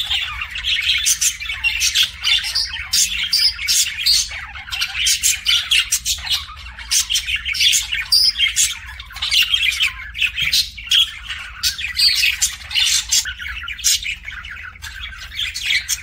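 Budgerigars chattering: a fast, unbroken stream of warbling chirps, squawks and clicks, the close-up chatter of a pair touching beaks.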